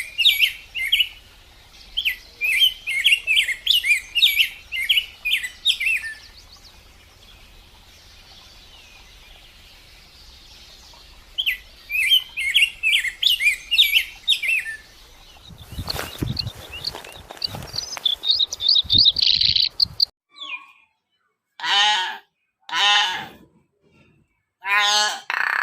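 Small birds chirping in quick, high bursts, pausing and resuming, then a noisier stretch of chirping. Near the end the chirping gives way to a few loud, pitched honks from geese.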